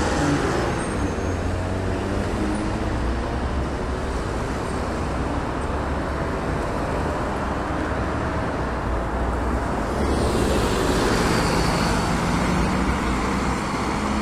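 Diesel engine of a LiAZ-5292.21 city bus running as the bus pulls away from the stop and drives past, over general traffic noise. The noise swells louder about ten seconds in.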